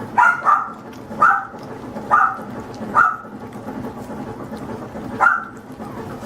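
Mother poodle yapping in short, sharp barks, about six in all: five in the first three seconds and one more after five seconds. She is barking out of jealousy while her puppies are fed.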